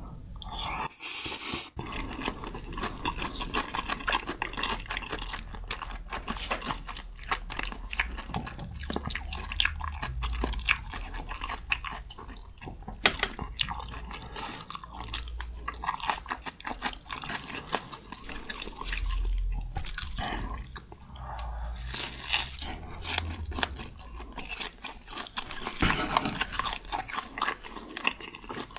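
Close-miked eating of Buldak spicy stir-fried instant noodles: steady wet, sticky chewing with dense clicks and smacks, and a louder hissy slurp about a second in.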